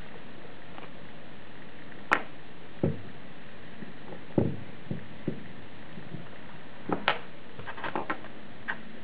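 Hands handling a helping-hands soldering stand and a soldered DB9 connector: a scattered series of light clicks and knocks as the alligator clips are worked and the connector is set down on the desk, over a steady background hiss.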